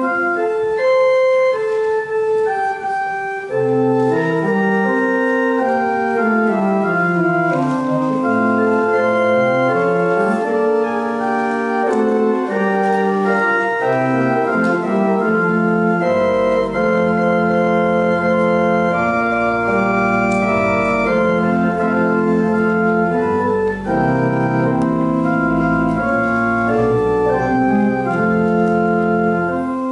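Church organ playing the postlude at the close of the service: sustained chords over a moving bass line, with deep pedal notes joining about halfway through.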